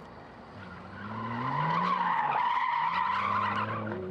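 BMW E36 325tds's 2.5-litre turbodiesel straight-six revving up and down as the car slides sideways in a drift. About a second in, the tyres start squealing, the loudest sound, and keep on for about three seconds.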